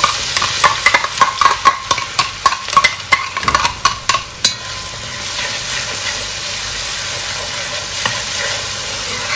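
Chopped paste of shallots, garlic and Madame Jeanette pepper frying in hot oil. For about the first four seconds a utensil stirs it with many quick knocks and scrapes against the pan; after that only a steady sizzle.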